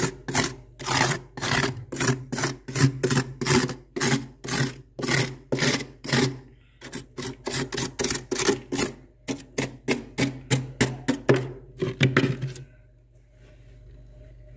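A flat scraper raking quickly back and forth across thick freezer frost, about two to three scraping strokes a second, stopping near the end.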